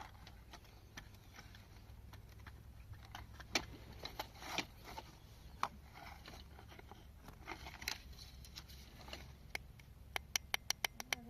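Small irregular clicks, taps and short scrapes of metal parts being handled as an old alarm clock is taken apart, ending in a quick run of about seven even clicks in a second near the end.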